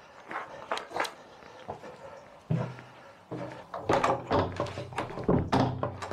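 Iron handle of an old wooden church door turned and the door pulled against its lock, giving repeated clunks and rattles from about two and a half seconds in, loudest near the end: the door is locked. A few light footsteps come before it.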